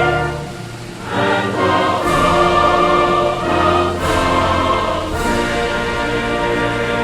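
Orchestral music with a choir, holding long chords that change every second or so; it dips briefly about half a second in, then swells back.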